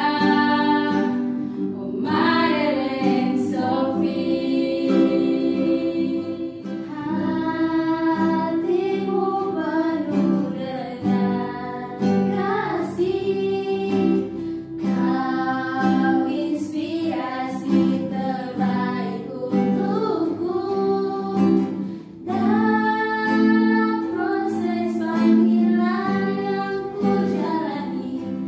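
Several young women singing a hymn together, accompanied by a nylon-string acoustic guitar.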